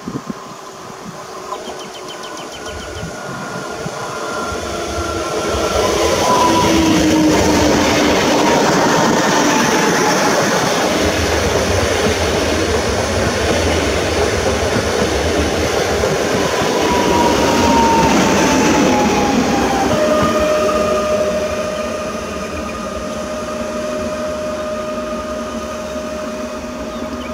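PKP Intercity ED161 (Pesa Dart) electric multiple unit passing at speed: a rising rush of wheels on rails, with an electric traction whine that falls in pitch as the train goes by. About two-thirds of the way through the rush eases and a steady, higher whine takes over.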